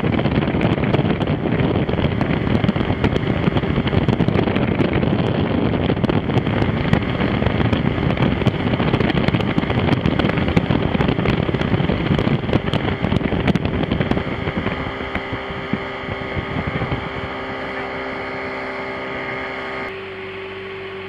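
Wind buffeting the microphone over the boat's engine running as it moves through the water. About 14 seconds in the wind noise eases and the engine's steady hum comes through, dropping a little further near the end.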